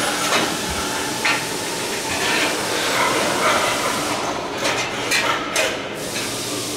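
Steady workshop hiss with several sharp knocks and bumps from metal parts of the aircraft's fuselage framework being worked into place, clustered more thickly near the end.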